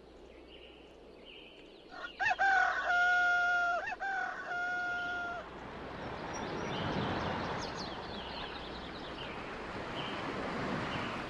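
Recorded rooster crowing twice, each crow rising at the start and then held, played over a hall's sound system as the intro to a performance. A soft even hiss with faint high chirps follows.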